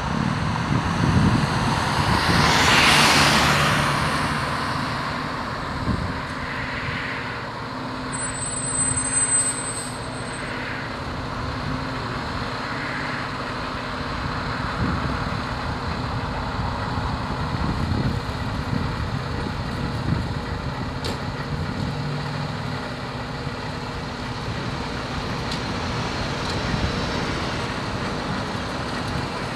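Fire engine's diesel engine running as the truck pulls out of the station bay and then idles with a steady low hum. About three seconds in, a louder whoosh swells and fades over a couple of seconds.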